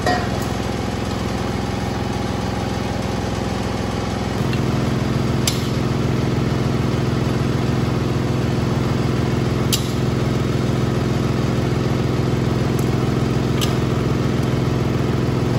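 Kitchen range hood fan running with a steady mechanical hum that changes and grows louder about four seconds in. A few light metal clinks of a spatula against the steel pot as lamb is scooped in.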